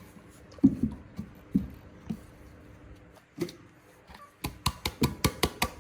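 Sharp clicks and taps: a few scattered ones at first, then a quick, even run of clicks starting about four and a half seconds in.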